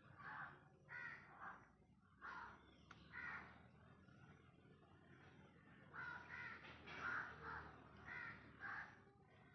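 Faint bird calls: short calls repeated about eleven times, some in quick pairs and clusters.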